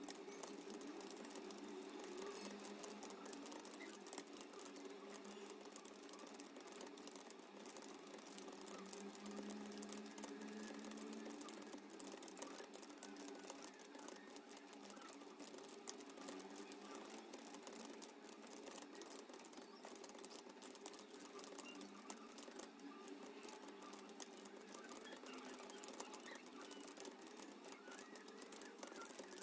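Fast typing on a computer keyboard: a dense, uneven patter of key clicks, over a low steady hum.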